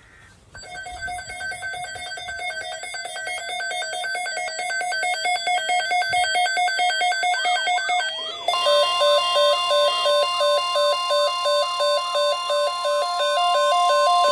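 Electronic alert tones announcing an Emergency Alert System weather message. A rapidly pulsing two-note pattern grows louder, then about eight seconds in it switches to a louder steady tone with a warbling two-note figure beneath it.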